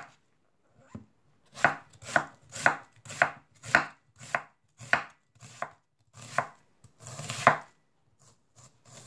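Chef's knife slicing an onion on a wooden cutting board: a regular run of crisp knocks, about two a second, as each stroke cuts through and strikes the board, starting about a second and a half in after a short pause.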